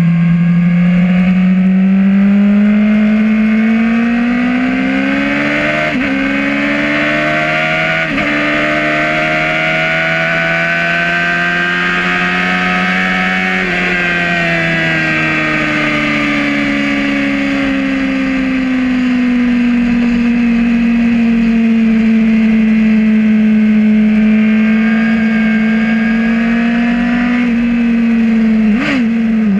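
Yamaha R1 inline-four sportbike engine heard from the rider's seat at full throttle: the note climbs and drops twice at upshifts in the first several seconds, keeps rising down the straight, then eases off and holds steady. Near the end two short sharp blips come as the bike brakes and downshifts for a corner.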